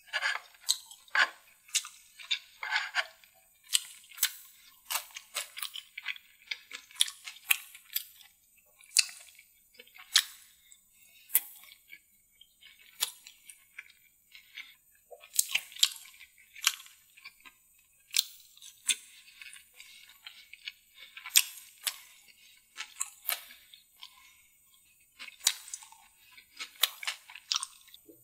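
Close-miked chewing and mouth smacking of a person eating spicy deviled food by hand, an irregular run of wet clicks, smacks and soft crunches.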